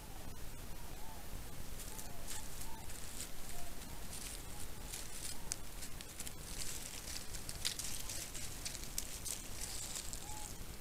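Outdoor trail-camera recording: a steady low hiss with scattered crackling and rustling in dry grass and brush, thickening from about six seconds in, and a few faint short chirps.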